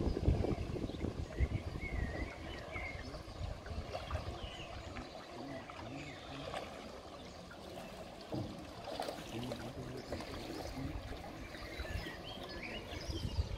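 Small birds chirping now and then over a steady rush of running water. Wind buffets the microphone in the first couple of seconds.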